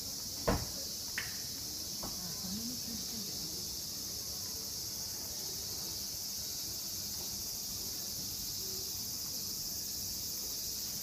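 A steady chorus of insects shrilling, with one sharp thump about half a second in and a lighter knock a moment later.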